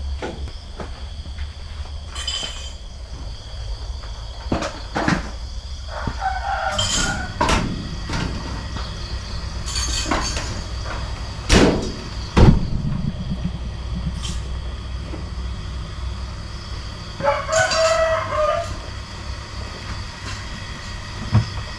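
A rooster crowing twice, once about a third of the way in and again near the end, each call lasting a second or so. Under it runs a steady high chirring of night insects, and two sharp knocks fall near the middle.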